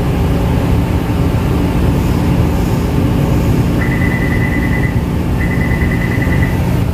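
Steady machine hum and rumble, like a fan motor running. A high, rapidly pulsing tone comes in twice in the second half.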